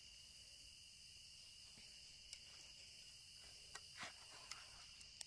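Faint, steady chirring of crickets, with a few soft clicks scattered through and a short, sharp tick near the end.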